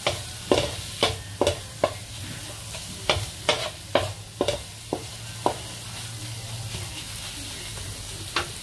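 A wooden spatula strikes and scrapes a nonstick pan as ginger, garlic and dried chillies are stir-fried, over a steady sizzle. The strokes come about two a second for the first five seconds, then the stirring pauses until a single stroke near the end.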